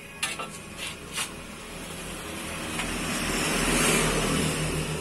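A road vehicle passing close by, its noise swelling to a peak about four seconds in and then fading. Near the start come a few sharp clinks of a metal spatula against a wok.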